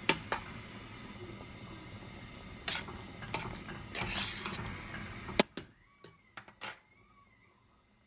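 Cooking tongs clinking and clattering against a metal soup pot as dumplings are stirred into the simmering soup: scattered single clicks, then a quick run of clatter about four seconds in, over a low steady hum that stops about halfway through.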